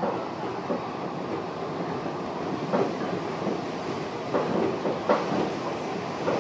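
Japanese commuter train car running, heard from inside: a steady rumble with sharp wheel clacks over the rail joints a few times.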